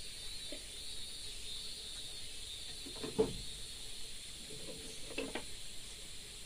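Steady high-pitched hiss of an insect chorus, with two brief low sounds about three and five seconds in.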